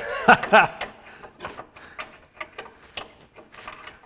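A hand ratchet clicking in short, irregular strokes, a few clicks a second, as a last bolt left done up is undone before the tractor is split. A short burst of a man's voice comes right at the start.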